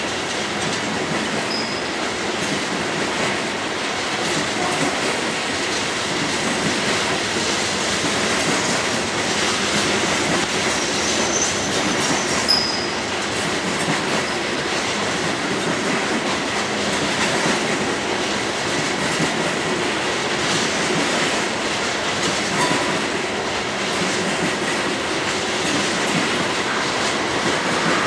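Loaded coal hopper cars of a freight train rolling past: steady wheel-on-rail noise with faint repeated clicks. A few brief high wheel squeals come in, one just after the start and two about twelve seconds in.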